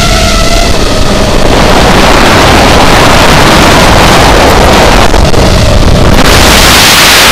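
FPV racing quadcopter's electric motors and propellers whining, heard through its onboard camera with heavy wind rush on the microphone. The whine bends in pitch with the throttle in the first second or so, is then mostly buried under the wind rush, and comes back faintly near the end.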